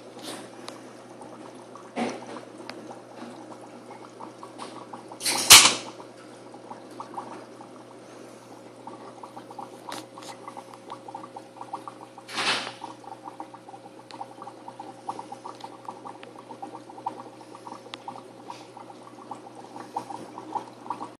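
Aquarium water bubbling and trickling over a steady pump hum. Three brief knocks or rubs break in, the loudest about five seconds in.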